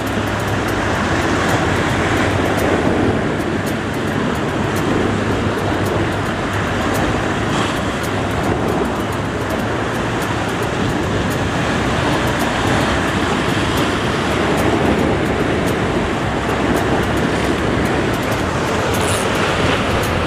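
Sea waves breaking and washing among shoreline rocks: a steady, loud rushing with no pauses.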